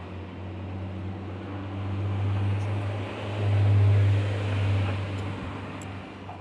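Car engine running with a steady low hum that swells louder briefly a little past the middle, then eases off.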